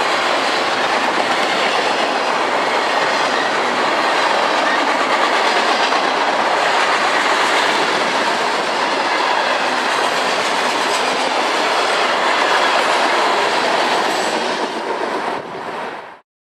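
Freight train cars rolling past, their wheels clattering steadily over the rail joints. The noise eases slightly near the end, then cuts off abruptly.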